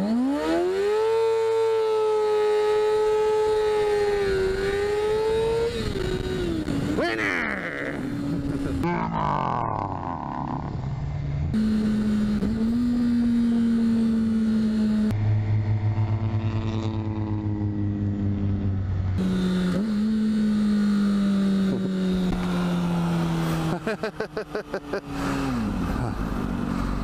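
A 2008 Kawasaki Ninja ZX-6R's inline-four engine revs hard on a launch from a standstill. The pitch shoots up within the first second and holds high for about five seconds, then drops off. After that the engine runs lower and steadier, with several falls in pitch as the bike eases off.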